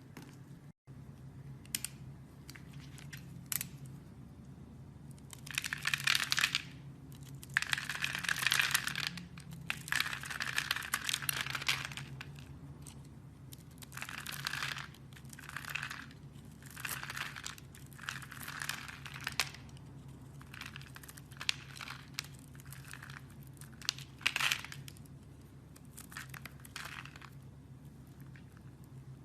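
Blade cutting and scraping through dry bar soap: crisp crunching strokes in irregular bursts, some short and some a second or two long, over a steady low hum.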